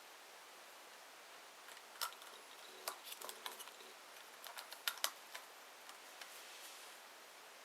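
A scattered run of small, sharp clicks and taps from hard phone parts and a tool being handled, over faint background hiss; the loudest taps come about two, three and five seconds in.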